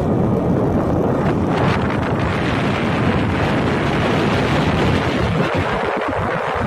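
Wind blowing across the microphone: a loud, steady noise with no distinct tones or voices.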